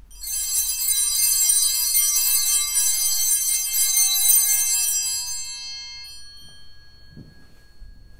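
Altar bells rung at the elevation of the chalice just after the consecration: a cluster of high bell tones shaken for about five seconds, then ringing away and fading over the next second or two.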